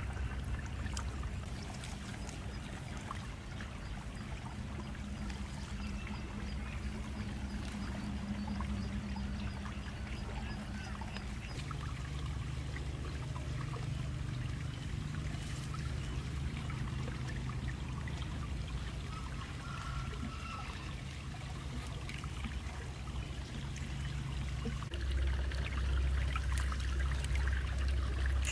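Shallow ditch water trickling steadily, with scattered light taps and rustles from hands working at the edge. Under it runs a low droning hum that drops in pitch about a third of the way in and grows louder near the end.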